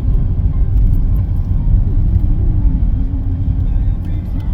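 Steady low rumble of a vehicle running, heard from inside it.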